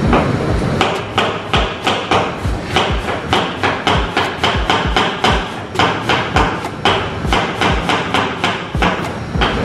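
Kitchen knife slicing cabbage thinly on a cutting board: a quick, even run of chops, about three a second, each landing with a knock on the board.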